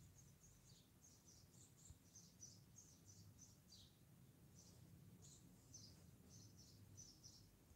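Near silence with faint, quick, high bird chirps coming again and again, over a low steady hum.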